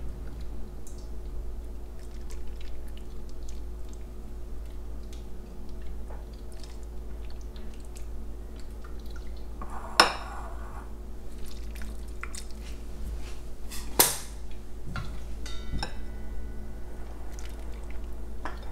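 Metal ladle scooping hot broth from a steel pot and pouring it into ramen bowls, with small clinks and drips. Two sharp metal clinks stand out, about ten and fourteen seconds in, over a steady low hum.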